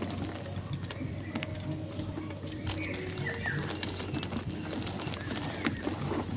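Reformed gym chalk being crushed and crumbled by hand: a steady run of small dry crunches and crackles.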